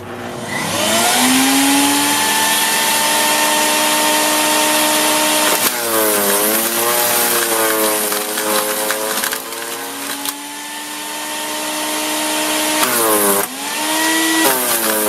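Sun Joe CJ602E 15-amp electric wood chipper-shredder motor spinning up to a steady whine. About six seconds in and again near the end, branches are fed in: the motor bogs down and wavers under the crunch of wood being chipped, then picks back up.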